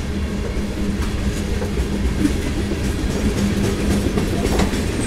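Covered hopper cars of a CSX freight train rolling past. The wheels on the rails make a steady rumble, broken by a few clicks as they pass over rail joints.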